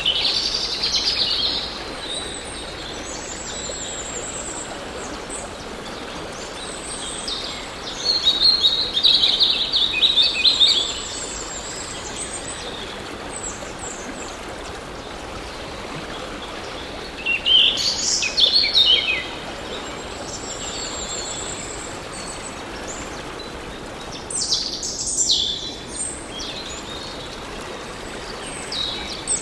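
A stream flowing steadily, with birds singing and chirping over it in four separate bursts of calls.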